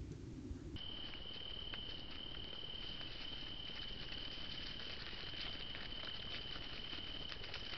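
A cricket trilling on one steady, unbroken high note from about a second in, over soft scattered ticks and rustles.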